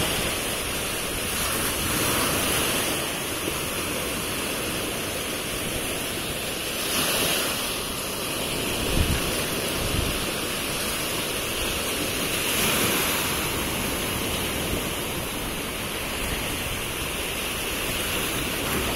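Sea surf washing onto the beach, a steady rush of small breaking waves that swells every few seconds, with wind on the microphone and a couple of brief low buffets about nine and ten seconds in.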